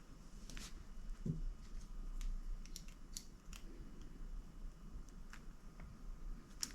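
Faint, scattered metal clicks and light taps of a 2.5 mm Allen key tightening the bolt in a motorcycle's handlebar end bar, with a soft knock about a second in.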